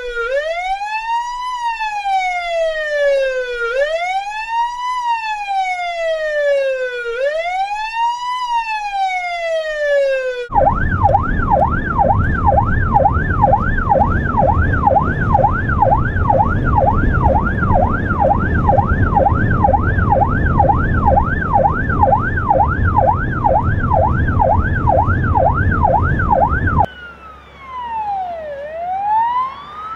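Russian police car's electronic siren: a slow wail rising and falling every three to four seconds, switching about ten seconds in to a fast yelp at about two cycles a second over a heavy low rumble. Near the end the yelp stops abruptly and a quieter slow wail begins.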